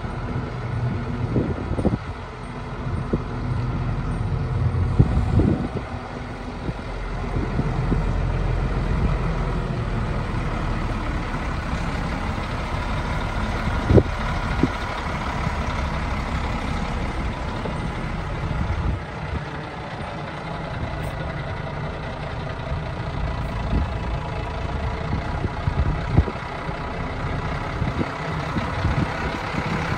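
1995 International 4700 truck's diesel engine idling steadily. A few brief knocks come over it, with one sharp knock near the middle.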